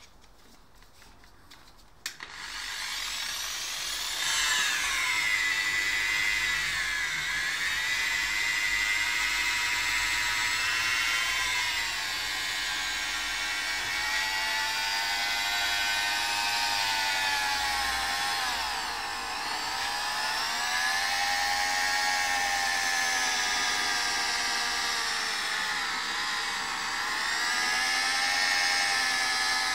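Corded rotary polisher switching on about two seconds in and running, its motor whine rising and dipping in pitch as the spinning pad is worked over a car door panel.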